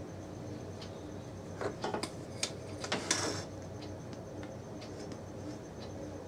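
Handling noises of a circuit board and a resistor being fitted into it: a few small clicks and rustles, ending in a short scrape about three seconds in, over a faint steady hum.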